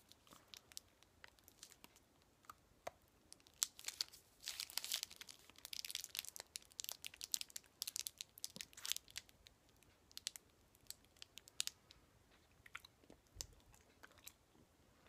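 Faint crinkling of a candy-bar wrapper and close-up chewing of a Big Hunk, a chewy nougat bar with peanuts. There is a busier run of crinkles and crunches through the middle, then sparse small clicks of chewing.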